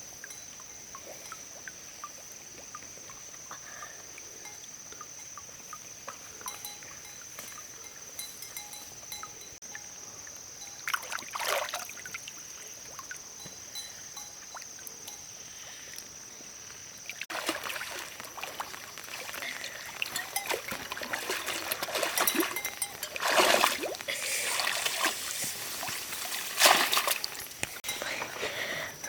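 Water splashing and trickling in irregular bursts, becoming louder and more frequent about two-thirds of the way through, over a steady high-pitched whine that stops partway.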